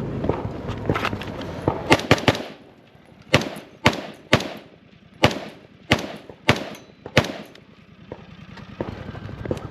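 Rifle fire during a timed practical-shooting stage: three shots in quick succession about two seconds in, then seven more single shots spaced half a second to a second apart. The shooter's movement and gear rattle can be heard before the first shots.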